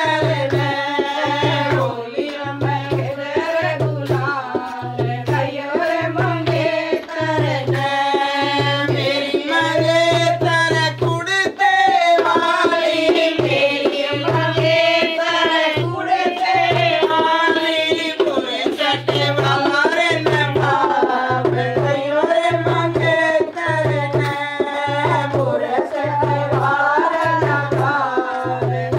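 Women singing a Holi folk bhajan, accompanied by a dholak hand drum keeping a steady beat.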